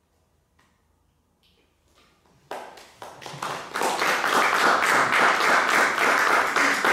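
Near silence, then scattered claps begin about two and a half seconds in and quickly swell into steady audience applause.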